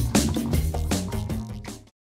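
Background music with a steady beat, fading out and stopping near the end.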